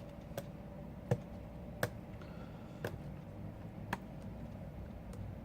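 Small sharp clicks and taps of hand tools and tiny parts being handled while an iPhone 5c is taken apart, about five of them spaced roughly a second apart, the second the loudest.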